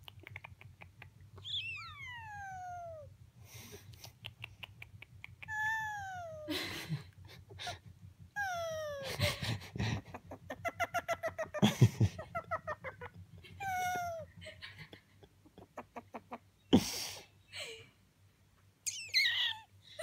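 Senegal parrot making a run of whining, falling whistled calls, mixed with breathy sighs and trains of rapid clicks: the attention-seeking noises it makes when it wants something it can't have.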